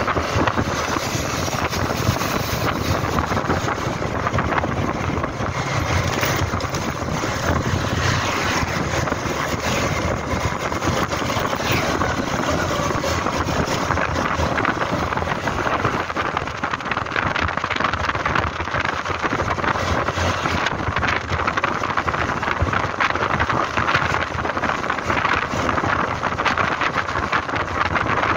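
Steady wind rushing over the microphone on a moving scooter, with the scooter's engine and road noise underneath.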